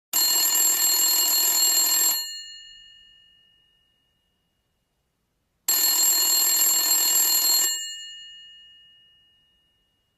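Telephone bell ringing twice, each ring about two seconds long with a pause between, the bell tones fading out after each ring.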